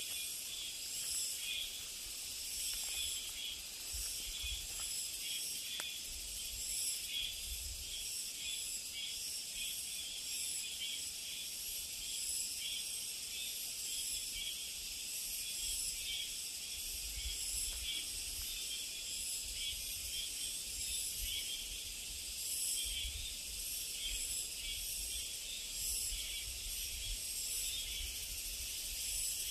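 A steady, high-pitched chorus of summer insects in the forest. Now and then it is joined by low wind rumble on the microphone.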